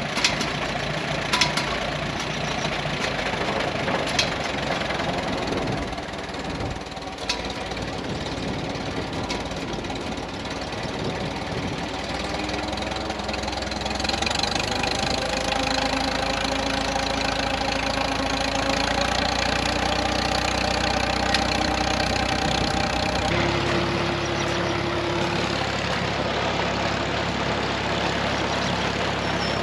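Farmall M tractor's four-cylinder gasoline engine running steadily while belt-driving a flood-water pump, with a few sharp knocks in the first several seconds. In the middle a whine rises slowly. Near the end the engine sound is joined by water gushing from the pump's discharge pipe into the ditch.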